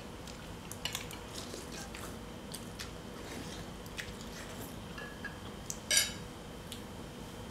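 Sounds of eating: scattered light clicks and taps of a spoon and fingers against dishes, with one sharper, ringing clink of cutlery on a dish about six seconds in.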